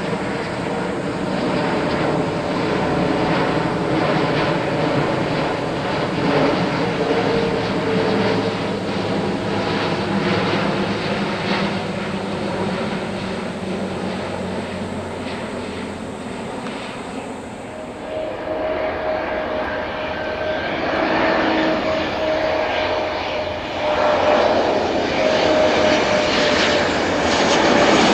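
Jet airliners on final approach: an Airbus A350 passing with its Rolls-Royce Trent XWB turbofans at approach power, a continuous jet rumble with faint engine tones. About two-thirds of the way in the sound changes abruptly to an Embraer E190 on approach, its engines giving a steady whine over the jet noise that grows louder toward the end.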